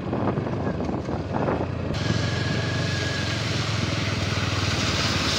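Motorcycle engine running at low road speed with wind and tyre noise on a wet road. About two seconds in the sound changes suddenly and a louder, wider hiss of wind and tyres joins the engine.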